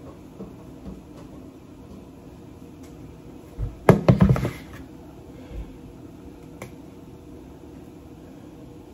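A bowl set down on a kitchen counter: a short clatter of several knocks about four seconds in, the loudest thing here. Otherwise faint room tone with a few scattered small clicks.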